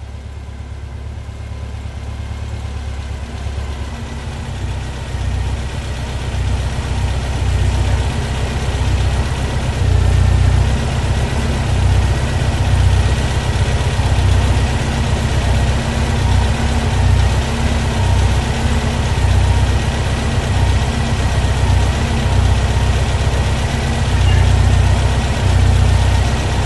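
Newly built 2332cc air-cooled VW flat-four with dual 44 Weber carburetors, running on an engine stand. It grows louder over the first several seconds, then runs steadily.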